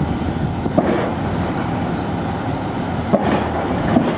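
Steady low mechanical rumble, like heavy machinery or a running engine, with three short sharp clicks.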